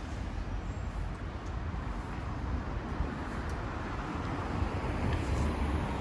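Steady city street traffic noise: a continuous rumble of passing vehicles.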